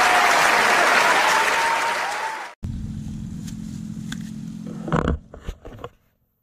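Audience applauding and cheering, cut off abruptly after about two and a half seconds. Then a steady low hum with a few knocks near the end, before the sound drops out.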